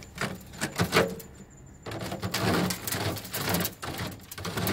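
Small three-pronged hand cultivator scraping and stirring compost across a sifting screen of half-inch welded hardware cloth: gritty scratching with the clicks of metal tines on the wire. A few separate scrapes come first, and about two seconds in it becomes a continuous rasping.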